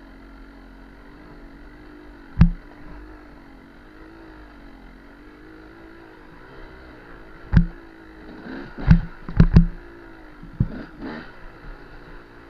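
KTM 200 EXC two-stroke single-cylinder dirt bike engine running on the move, its note rising and falling gently with the throttle. Sharp knocks are the loudest sounds, one about two seconds in and a quick cluster of about five a few seconds later, as the bike jolts over bumps on the rocky trail.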